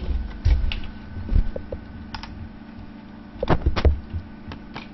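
Plastic clicks and snaps as the HP 625 laptop's display bezel is pressed onto the screen lid by hand, its clips engaging one after another. There are two sharper snaps close together about three and a half seconds in, over a faint steady hum.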